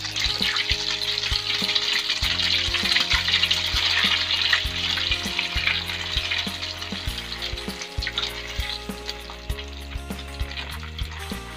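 Skewered egg-coated tapioca dough deep-frying in hot oil in a wok, with a loud sizzle. The sizzle is strongest for the first several seconds after the fresh batter goes in and dies down after about eight seconds.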